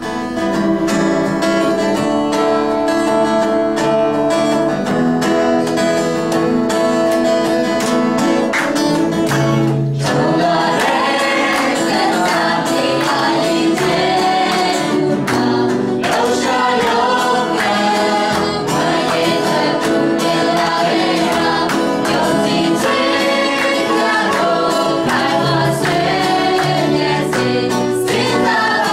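A group of singers on microphones singing a song together with guitar accompaniment. The first ten seconds or so are held instrumental chords, and the voices come in at about ten seconds.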